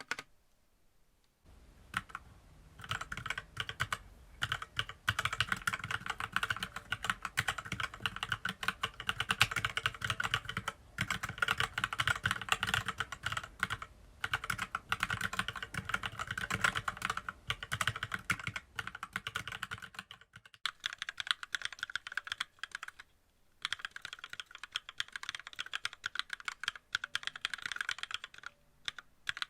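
Fast continuous typing on a WENRUI WR63 mechanical keyboard with red linear switches. For the first twenty seconds the switches are unlubricated. After a short pause, the typing continues on lubricated switches with much less low thump.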